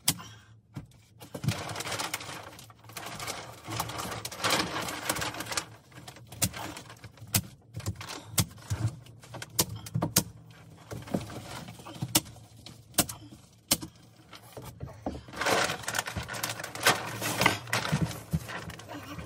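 Clear plastic vapour-barrier sheet crinkling and rustling as it is pulled up and smoothed against a wall, with a dozen or so sharp clacks from a handheld fastening gun tacking it in place.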